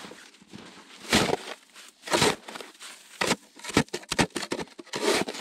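A plastic snow shovel cutting into crusted snow, making a series of crunching, scraping strokes. The two strongest come about one and two seconds in, followed by shorter ones.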